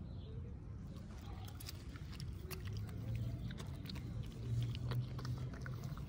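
A small dog chewing leafy green plant stems, with a run of quick wet crunches and clicks. A low rumble swells near the middle.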